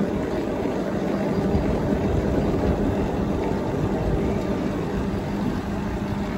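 Wind buffeting the microphone and tyre rumble from an electric cargo bike rolling along an asphalt road, with a steady hum.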